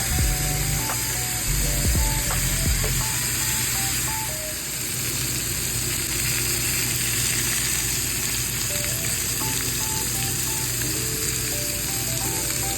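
Food sizzling in hot oil in a frying pan, a steady hiss, with background music playing over it: short melodic notes and a bass line that drops out about three seconds in and the melody returning near the end.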